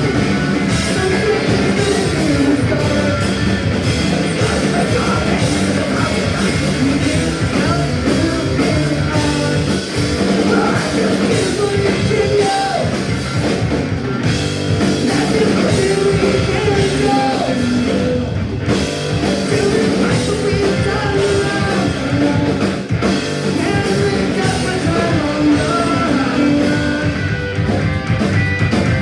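Punk rock band playing live at full volume: electric guitar and drum kit driving a fast song, with sung vocals over the top.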